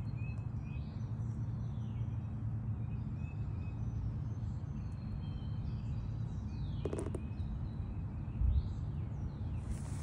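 Outdoor ambience: birds chirping repeatedly, with short notes and some falling calls, over a steady low rumble. A sharp click comes about seven seconds in and a dull thump shortly after.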